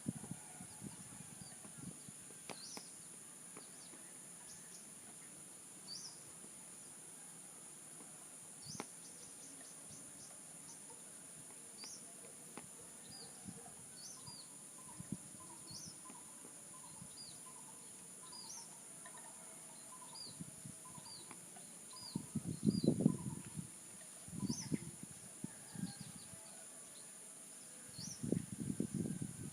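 Outdoor ambience: a steady high insect drone, with a small bird giving short, quick chirps every second or so and a run of softer, lower notes through the middle. Near the end, a few louder low, rough bursts stand out above it.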